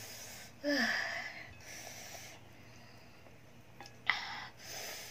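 A woman breathing hard through her open mouth, four hissing breaths with a short voiced gasp on the first, a pause, then two more, the first of those sharp. She is huffing to cool her mouth from the burn of spicy Korean noodles.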